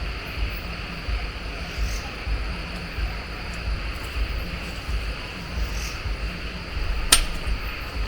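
Steady chorus of crickets and other insects over a low, uneven rumble, with one sharp click about seven seconds in.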